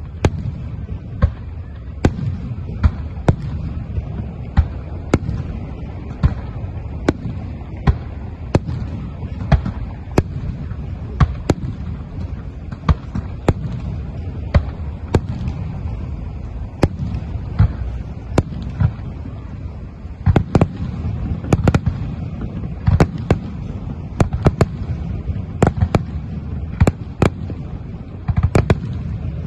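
Aerial fireworks display: sharp shell bursts go off one or two a second over a constant low rumble. The bangs come thicker about twenty seconds in and again near the end.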